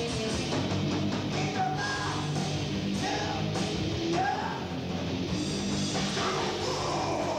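Heavy metal band playing live: distorted electric guitars, bass and drums.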